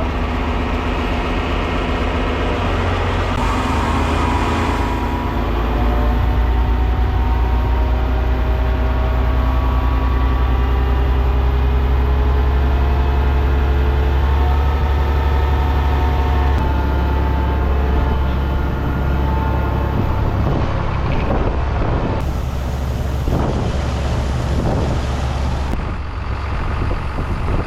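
Tractor engines running under load while a PTO-driven grain auger works and a grain cart unloads wheat: a steady heavy drone, with engine pitch drifting slowly up and down through the middle and a few knocks near the end.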